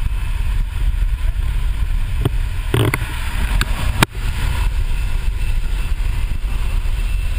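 Jump plane's engine and the wind rushing past the open door, a steady, loud, low rumble. A few knocks from gear and bodies moving in the cabin, the sharpest about four seconds in.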